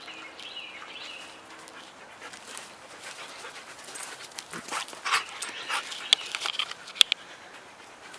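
Husky puppy panting in short rough breaths, with a faint high whine in the first two seconds.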